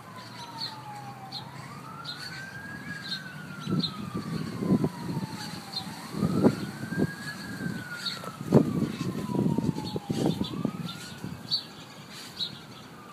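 Outdoor tornado warning siren wailing, its pitch rising over about a second and a half and then sliding slowly down, three times, with a fainter second siren overlapping. Gusts of wind buffet the microphone with loud low rumbles through the middle, and birds chirp faintly.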